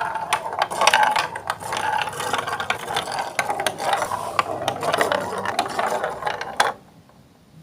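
Marbles rolling and clattering along a plastic Lego Duplo block track: a dense, continuous run of clicks and rattling that cuts off suddenly near the end.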